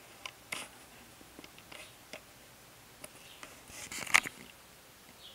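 Small, scattered clicks and taps of a screwdriver and tiny screws being handled against a laptop's bottom case, with a louder cluster of clicks about four seconds in.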